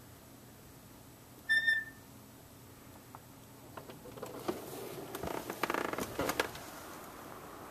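A faint steady background broken by one short, high, steady chirp about a second and a half in. From about four seconds come two and a half seconds of rustling and sharp knocks, as a door at the edge of the deck is reached and handled.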